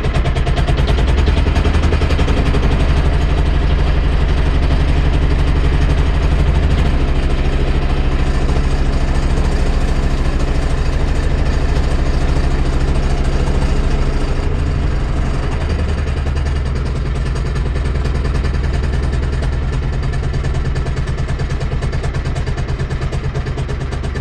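Yanmar marine diesel engine idling steadily with an even firing beat, cooling water splashing out of the hull's wet-exhaust outlet. The engine gets a little quieter about halfway through.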